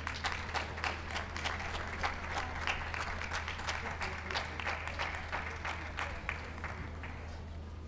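Audience applauding, with many hands clapping irregularly; the clapping thins out and stops about seven seconds in. A steady low hum runs underneath.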